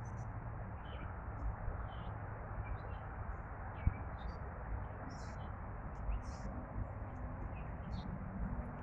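Birds chirping in short, scattered calls over a steady hum of city traffic, with one brief knock about four seconds in.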